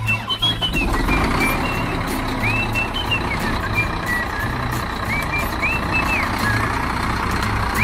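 A tractor engine running steadily, starting about half a second in, with birds chirping over it and background music.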